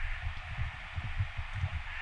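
Shallow creek water running steadily over stones, with low irregular rumbles on the microphone.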